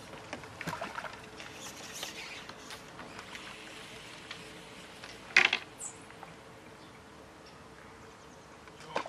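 Handling noise from a pole angler's carbon pole and seat box: a few light clicks and knocks, one sharp knock about five and a half seconds in, and a smaller one near the end.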